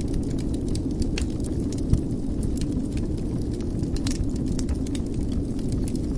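Wood fire burning in a fireplace: a steady low rumble with scattered crackles and pops, and one sharper pop about two seconds in.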